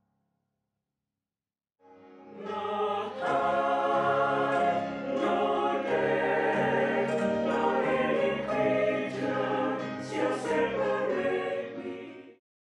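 Mixed choir singing in parts, starting after about two seconds of silence and cutting off suddenly near the end.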